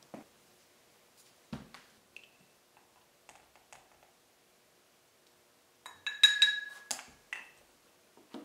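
Light taps and knocks of small tools and containers, then a quick cluster of ringing clinks about six seconds in, as stain powder is scooped into a small glazed ceramic cup.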